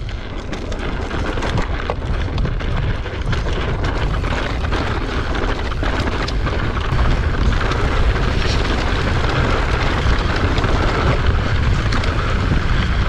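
Mountain bike riding downhill over a rocky dirt trail: a steady rumble of wind on the action camera's microphone and tyres on gravel, with frequent short clicks and knocks from the bike over stones. It grows a little louder about halfway through.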